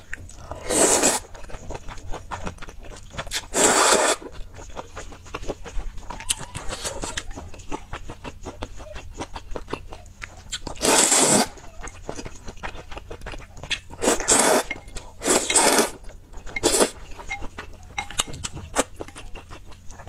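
Close-miked eating of noodles: about six loud slurps of half a second or so, with wet chewing and small mouth clicks in between.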